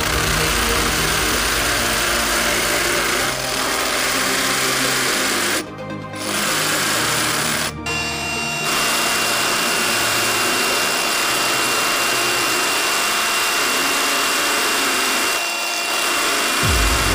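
Cordless hammer drill with a masonry bit hammer-drilling into a concrete block: a steady buzzing rattle that breaks off briefly about six and eight seconds in. Electronic dance music plays underneath.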